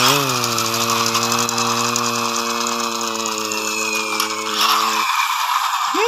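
Small plastic toy forklift rolling across concrete, its wheels and gears making a fast, continuous rattle. Under it a steady low drone holds and then stops about five seconds in.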